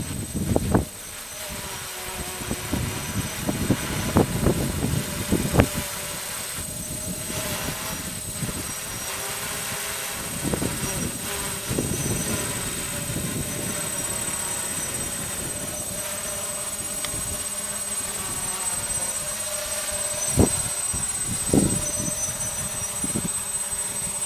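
DJI quadcopter's electric motors and propellers humming steadily with a wavering pitch as it hovers and slowly descends under Naza GPS failsafe auto-landing. Low gusty rumbles, wind on the microphone, are loudest in the first six seconds.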